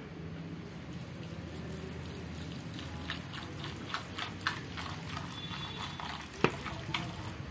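Water poured from a plastic bottle into a steel bowl of dry dog kibble. From about three seconds in come scattered crackles and ticks, with one sharp click near the end.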